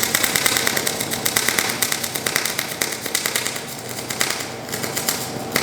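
A workshop power tool rattling: a rapid, evenly paced run of sharp metallic strikes, easing slightly in level near the end.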